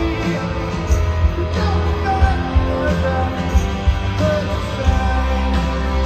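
Live rock band playing through a large outdoor PA, heard from within the crowd: electric guitars, bass and drums with a steady beat, with singing over them.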